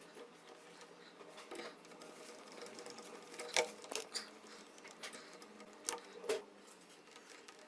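Scattered sharp clicks and taps, about half a dozen, mostly in the second half, over a faint steady hum.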